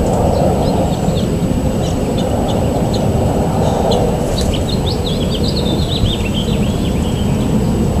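Songbirds chirping over a loud, steady low rumble of background noise; scattered chirps give way, about halfway in, to a quick run of chirps that falls in pitch over a couple of seconds.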